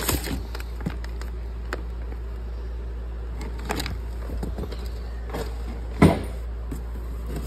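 Clear plastic bags of hose fittings rustling and crinkling as they are lifted and moved around in a cardboard box, with one louder knock about six seconds in, over a steady low hum.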